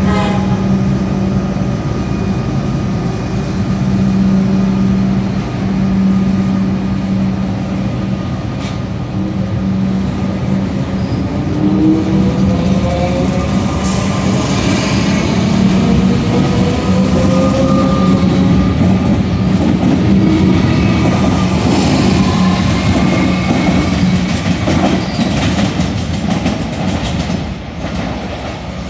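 A Melbourne suburban train running past on the rails, with a steady low hum and wheels squealing in gliding tones through the middle stretch.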